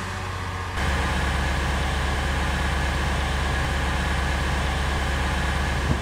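A car engine running steadily, stepping up louder about a second in and then holding an even low drone.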